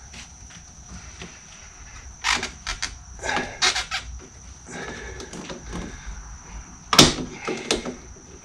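Sharp metallic clicks and short clatters as a hose clamp and hand tool are worked onto a coolant hose at the thermostat housing of a Dodge Durango's 3.6L V6. A cluster of clicks comes a couple of seconds in, with the loudest snap about seven seconds in.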